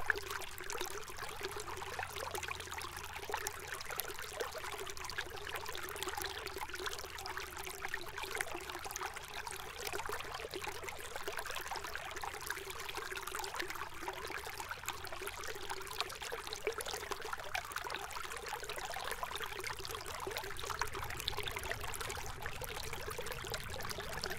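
Steady rush of a river's water flowing over gravel, with no pauses or changes.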